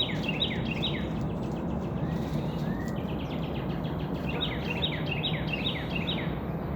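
A songbird singing two runs of clear notes that slur downward, about three a second, one at the start and another about four seconds in, over a steady low background rumble.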